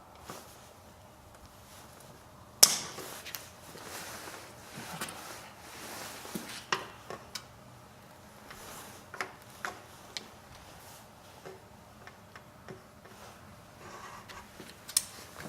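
Knife work on a plucked duck carcass: a sharp click about two and a half seconds in, then scattered clicks, taps and short scraping rustles as the bird is cut and handled.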